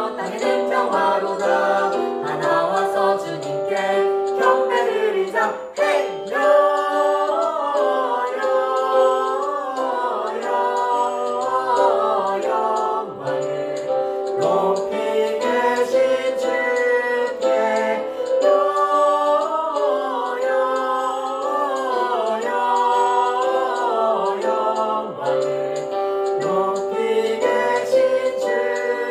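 A small group of voices singing a medley of Christmas hymns and carols together over an instrumental backing track.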